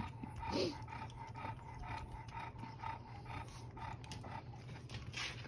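A small dog licking whipped cream out of a paper cup: a steady run of quick, wet licks and little clicks against the cup.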